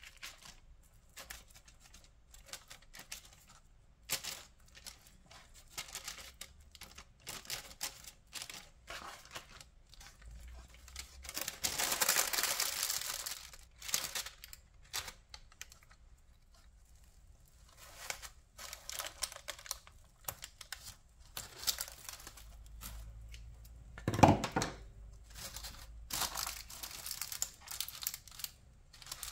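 Crinkling and rustling of parchment paper and plastic cling film as a baking pan of dough is handled and covered, in many short crackles with a longer tearing rustle partway through. One thump about two-thirds of the way in.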